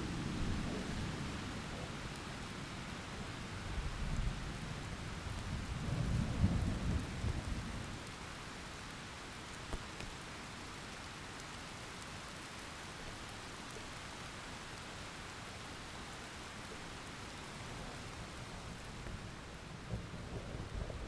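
Steady rain with rolling thunder. Low rumbles swell at the start, again from about four to seven seconds in, and once more near the end, all over a constant hiss of rainfall.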